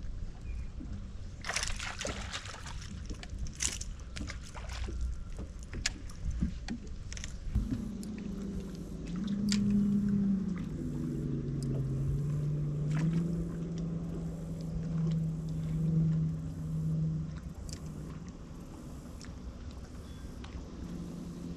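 Boat motor humming from about eight seconds in, stepping in pitch a couple of times, then dying away near seventeen seconds, over a steady low rumble of wind and water around the boat. A few sharp clicks and knocks come in the first few seconds.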